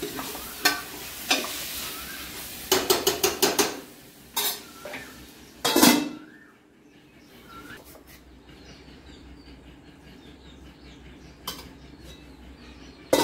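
Drumstick-leaf saag sizzling in a stainless-steel kadhai while a steel spoon scrapes and taps against the pan, with a quick run of taps about three seconds in. Two loud ringing clanks of steel lids and pans follow, and after about six seconds the sizzle drops away to faint clatter.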